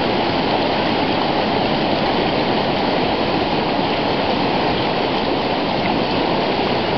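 Strong, fast-flowing mountain river rushing steadily through white-water rapids.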